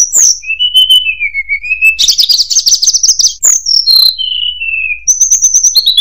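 Hill blue flycatcher (tledekan gunung) singing: a varied song of clear whistled notes, many slurring downward in pitch, with a fast high trill about two seconds in and a quick run of repeated notes near the end.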